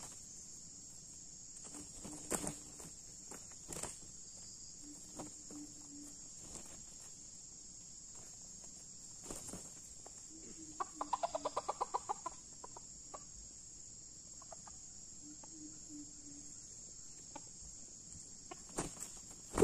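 Red junglefowl clucking: soft low clucks every few seconds, and a little past halfway a rapid run of about a dozen louder clucks. Behind them is a steady high buzz of insects, with occasional light rustles in dry leaf litter.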